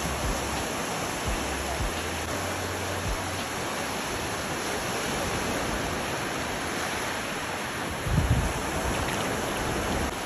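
Small waves breaking and washing up the beach: a steady rush of surf, with a brief low thump about eight seconds in.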